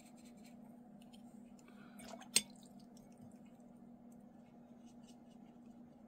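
Quiet brush sounds as a watercolour brush is wetted and clear water is laid onto paper, with faint scattered ticks and one sharp tap a little over two seconds in, over a steady low hum.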